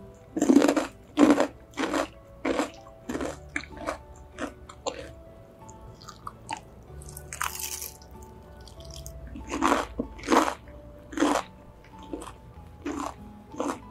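Crispy coating of KFC boneless fried chicken crunching loudly as it is bitten and chewed: a run of crunches about one every two thirds of a second in the first five seconds, then another run about ten seconds in. Soft background music underneath.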